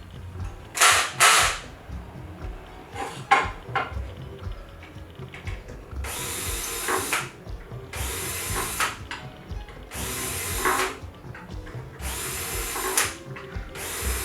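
Power drill run in short bursts of about a second each, roughly every two seconds, after a few sharp knocks and clicks.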